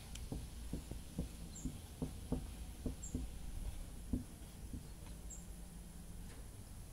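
Marker pen squeaking on a whiteboard as words are written: a quick series of short squeaks, one per stroke, stopping about four and a half seconds in.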